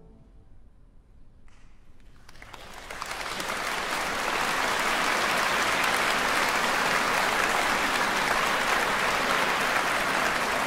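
The last piano chord fades into a brief hush, then a concert-hall audience starts applauding about two seconds in, swelling to full, steady applause by about four seconds.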